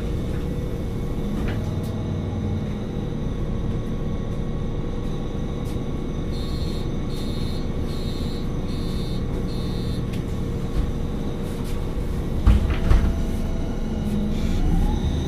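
MAN NG 273 articulated bus with an LPG engine idling at a stop, a steady low rumble. Midway, five short high beeps sound about a second apart, the door-closing warning, followed a couple of seconds later by two quick thumps as the doors shut.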